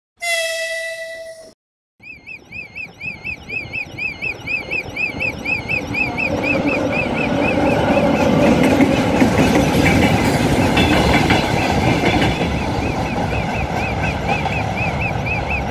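A short chime, then a railway level-crossing alarm warbling rapidly while a diesel-hauled freight train of hopper wagons passes. The train's rumble and wheel clatter build over the first few seconds, then hold steady under the alarm.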